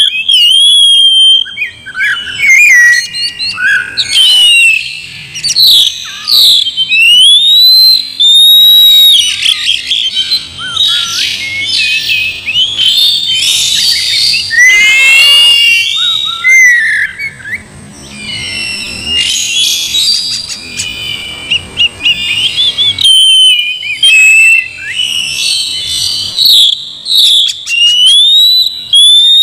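Oriental magpie-robin (kacer) singing loudly in full song: a long, varied run of whistled phrases with quick rising and falling notes and scratchy chatter, with only brief pauses.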